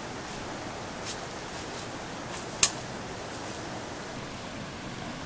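Steady outdoor hiss with a few light ticks, and one sharp snap about two and a half seconds in.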